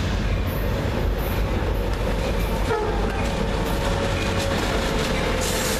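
CSX freight train led by an SD70MAC diesel-electric locomotive approaching and passing close by: a steady rumble of diesel engines and rolling wheels on the rails.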